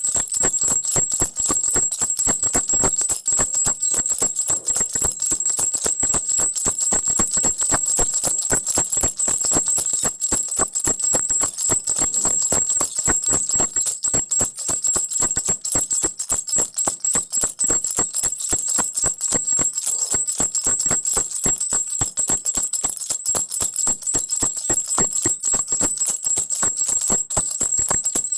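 Baby's crocodile rattle shaken continuously: a fast, unbroken run of clicking rattles with a bright, steady jingling ring over it.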